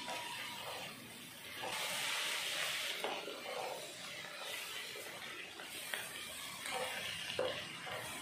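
Wooden spatula stirring and turning shredded parotta with egg and masala in a hot nonstick pan, the food sizzling as it fries. A louder stretch of hiss comes about two seconds in, and the spatula knocks lightly against the pan a few times.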